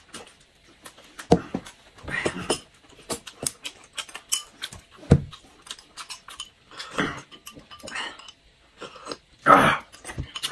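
Close-miked eating sounds: chewing and lip smacking over crisp-grilled shrimp, coming in short, irregular bursts, with scattered clicks of chopsticks and dishes.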